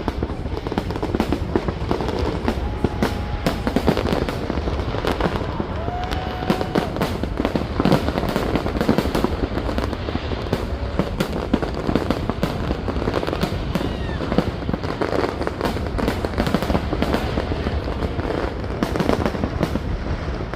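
Fireworks going off in a dense, continuous barrage of rapid bangs and crackles, many per second.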